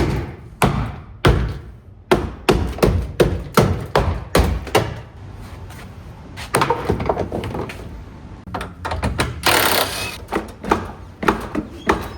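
Irregular knocks and thuds, two or three a second, from interior parts being handled and fitted in a car's cabin, with a brief rustling hiss about nine and a half seconds in.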